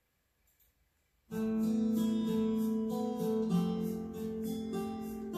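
Instrumental backing track that starts about a second in after near silence: a strummed acoustic guitar playing chords in an even rhythm.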